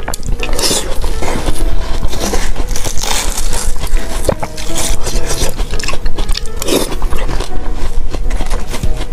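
Close-miked eating of fresh watermelon: a metal spoon scraping and scooping into the juicy red flesh, and the crisp, wet chewing of mouthfuls, as a run of quick clicks and crackles.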